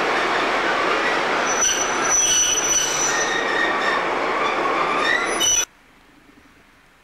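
Train running past a station platform, heard from on board at the window: a dense rumble and rattle of the wheels, with high wheel squeals from about a second and a half in. The sound cuts off abruptly about five and a half seconds in.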